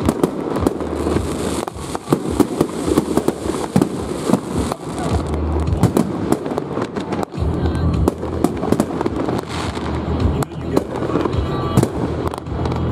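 Aerial fireworks barrage: many sharp bangs and crackles in quick succession as several shells burst at once.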